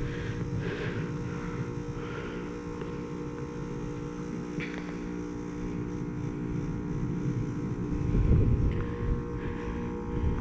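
Carrier Comfort heat pump outdoor unit humming steadily in defrost mode, its compressor running with the steady hum of several tones. A brief low rumble comes about eight seconds in.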